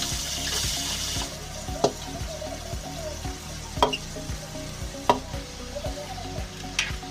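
Hot oil sizzling loudly as wet cauliflower goes into a kadai, the hiss dying down about a second in. Then a metal spatula stirs the vegetables, clinking sharply against the kadai four times.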